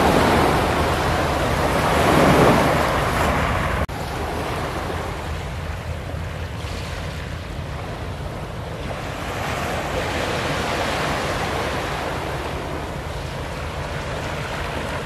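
Sea waves washing onto a beach, the surf swelling about two seconds in and again around ten seconds, with some wind on the microphone.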